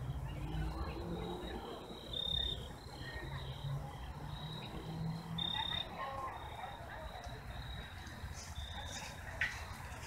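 Crickets chirping at night: a steady high-pitched chirp repeated in short pulses, over a low background rumble.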